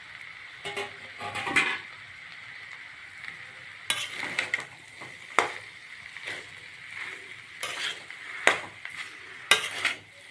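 A utensil scraping and knocking against a pan at irregular intervals as spiced potato samosa filling is stirred, over a faint steady sizzle.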